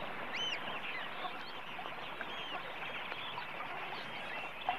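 A large flock of waterbirds calling continuously, many short overlapping calls blending into a steady chatter.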